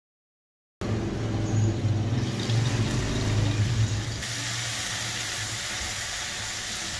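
Chicken, onion and tomato cooking in a gas-fired pan: under the lid a low rumbling hiss starts about a second in, and about four seconds in it gives way to a steady, brighter sizzle of the food frying in the open pan.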